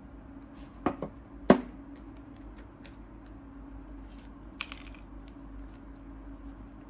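Unboxing handling noise: a few sharp taps and clicks as the plastic MagSafe Duo charger and its packaging are handled and set on a tabletop, the loudest about a second and a half in, with light ticks and rustles of paper leaflets later. A low steady hum runs underneath.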